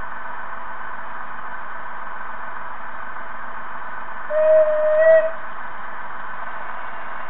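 Model steam locomotive's sound module giving one whistle blast of about a second, a little over four seconds in, over a steady background hiss.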